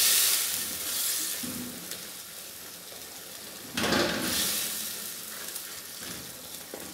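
Beef, onions and tomatoes sizzling in oil and meat juices in a metal karahi as they are stirred with a wooden spatula. The sizzle swells at the start and again about four seconds in, then eases off.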